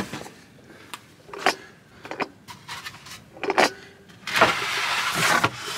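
A few sharp clicks, then a vehicle door being opened, with a steady rushing sound for about a second and a half near the end.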